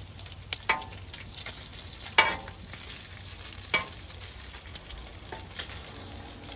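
Meat sizzling on a flat-top griddle, with a few sharp pops or clicks over the steady frying, the loudest about two seconds in.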